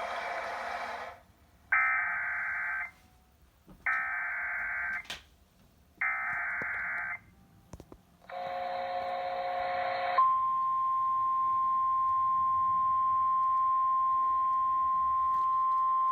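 Emergency Alert System activation for a severe thunderstorm warning: after a noisy band cuts off about a second in, three short bursts of SAME digital header data sound, each about a second long with pauses between. A brief buzzy burst follows, then the long, steady, single-pitched EAS attention tone begins about ten seconds in.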